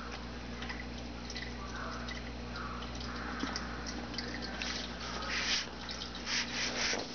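Aquarium water trickling and splashing over a steady electric hum from the tank's equipment, the splashing louder in bursts in the second half.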